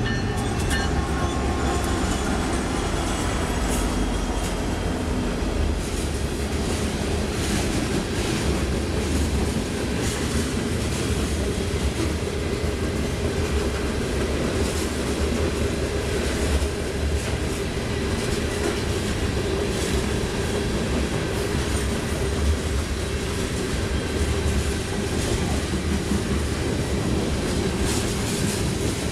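A BNSF freight train passing close by. The diesel locomotives' engines fade out over the first couple of seconds, then a long string of covered hopper cars rolls past with a steady low wheel rumble and scattered clicks.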